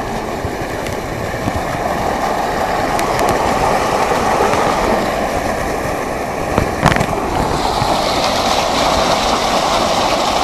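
Floodwater of a swollen stream rushing loudly and steadily, the rush growing brighter and hissier near the end, with a brief knock about seven seconds in.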